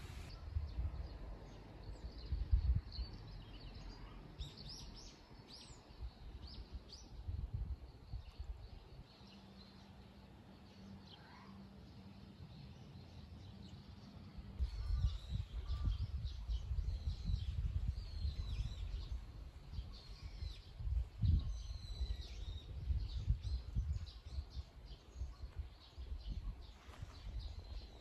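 Wind buffeting the microphone in an irregular low rumble, easing for a few seconds midway, with small birds chirping in short high calls over it.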